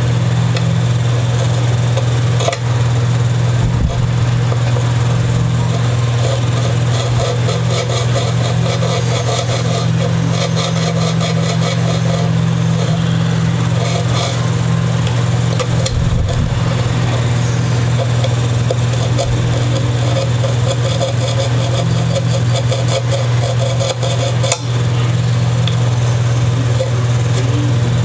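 A steady low machine hum throughout, with two stretches of rapid, rhythmic scraping strokes over it, typical of hand-sanding wood on a sanding block.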